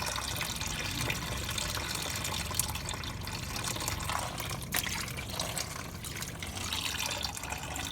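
Water-contaminated engine oil draining out of a river-flooded Honda Rancher ATV's crankcase in a steady trickling stream.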